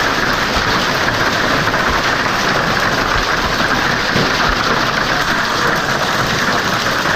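Hail falling hard on wooden decking, parasols and outdoor furniture: a dense, steady hiss of countless small impacts.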